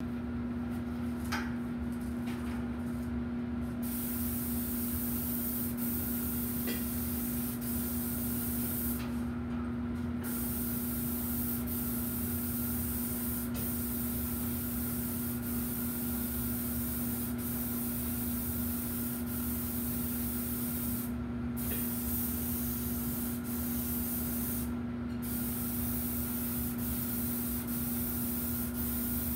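A rag wiping a metal lab hood panel, over a steady hum and constant air hiss.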